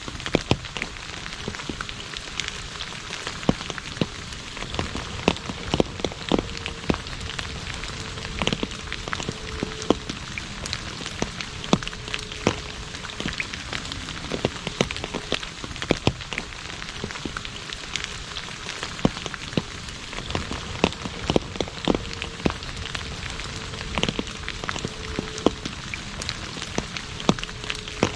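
Rain falling on an asphalt road: a steady hiss dotted with frequent sharp drop splashes, several a second.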